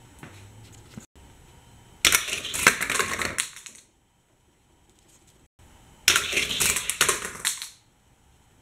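A Hot Wheels die-cast car clattering fast along plastic track, twice, each run rattling for about a second and a half.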